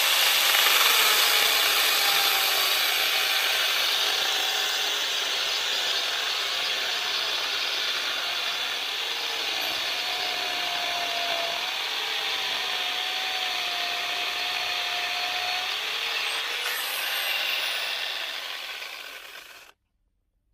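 Angle grinder fitted with a chainsaw adapter, its chain freshly tightened, running and sawing through a log, with a steady motor whine under the chain's cutting noise. It cuts off suddenly near the end.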